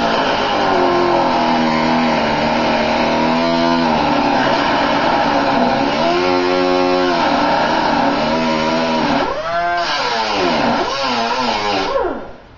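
Handheld power grinder working on a car body's spring seat, its motor pitch repeatedly dropping and recovering as it is pressed into the metal and eased off, with a hiss over the top. It cuts off abruptly near the end.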